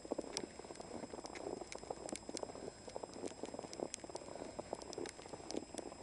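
Footsteps crunching through fresh snow, a dense, irregular crackling patter.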